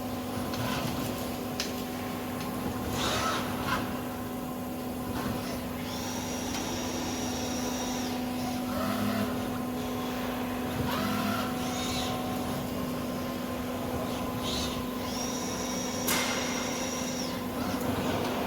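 Air Liquide AX-MV6L robotic welding cell running: a steady electrical hum, with short pitched glides from its drives and, twice, a high whine held for about two seconds, plus scattered clicks.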